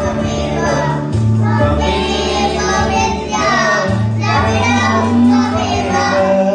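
A group of young children singing a prayer song in unison, with instrumental accompaniment that holds low notes under the voices.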